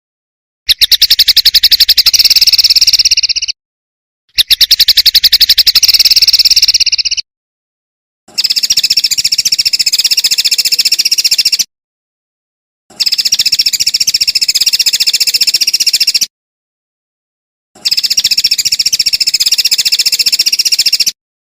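A songbird sings very fast trills in five separate phrases of about three seconds each, with a second or so of dead silence between them; the first two phrases sound coarser than the last three.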